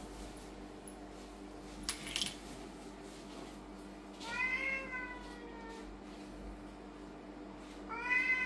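Lynx point Siamese cat meowing twice: a drawn-out meow of over a second about four seconds in, and a shorter one near the end, each trailing off slightly in pitch.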